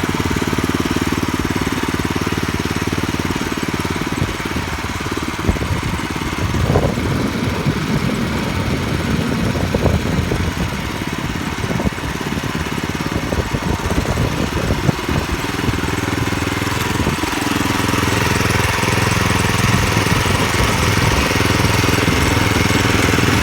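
Forte 900-3 walk-behind tractor's engine running steadily while it drives its rotary tiller through soil, with irregular knocks and rattles through the middle stretch and a steadier, stronger engine note from about two-thirds of the way in.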